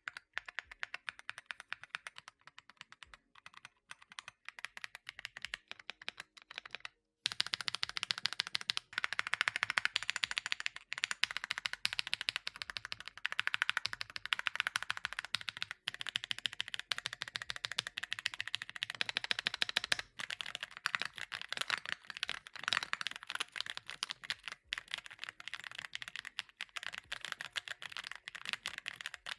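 Typing on a Keychron Q1 Max mechanical keyboard with pre-lubed Gateron Jupiter Banana tactile switches and KSA PBT keycaps, a rapid run of keystroke clicks. The typing is lighter at first, then louder and denser from about seven seconds in.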